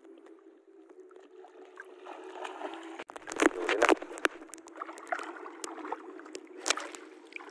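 Water sloshing and splashing, with a few sharp knocks that are loudest about three and a half to four seconds in, over a steady low hum.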